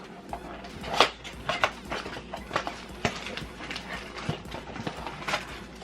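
Handling of Yu-Gi-Oh mini-box packaging and foil booster packs: irregular rustles, taps and clicks, with the sharpest click about a second in.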